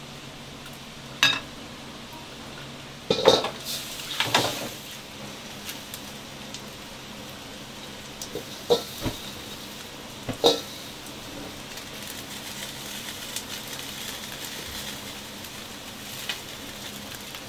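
A wok heating on a gas burner, with a faint steady sizzle and hiss, broken by several sharp clanks of metal utensils against pans. The loudest clanks come in a cluster about three to four and a half seconds in.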